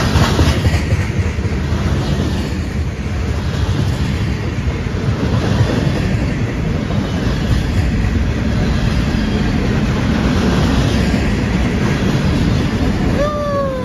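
Freight train's covered hopper cars rolling past close by: a steady, loud rumble and rattle of steel wheels on rail. Near the end comes a short tone that falls in pitch.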